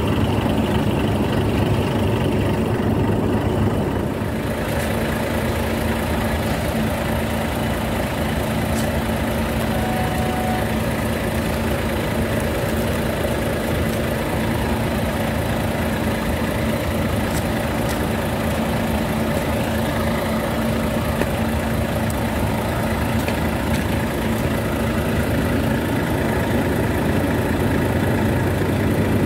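Diesel railway engine idling steadily.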